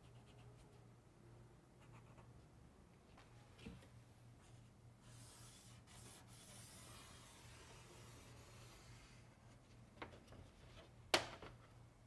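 Faint scratching of a marker drawn along a straight edge on a metal roof panel, with a few light clicks and one sharp tap near the end.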